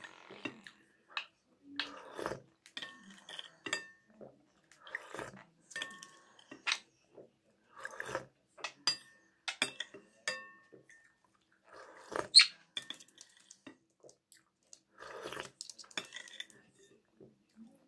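Metal spoon clinking against a ceramic soup bowl and soup being slurped off the spoon, again every second or two, with one louder clink about two-thirds through. Short chirps from a budgerigar come in between.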